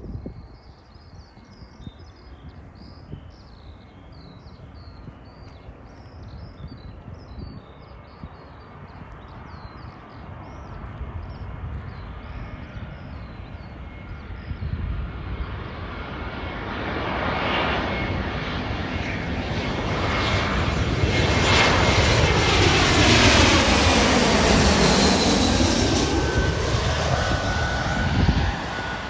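A jet airliner passing close by. Its engine noise builds over about ten seconds to a loud peak with a sweeping, phasing whoosh, then drops off suddenly shortly before the end.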